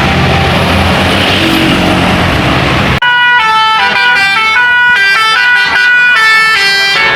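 A passing bus's engine and road noise, then, after an abrupt change about three seconds in, a bus's multi-tone telolet horn playing a quick melody of high notes that step from one pitch to the next.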